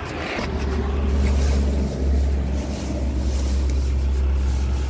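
Wind buffeting the microphone: a heavy, steady low rumble with a rushing hiss over it, setting in about half a second in.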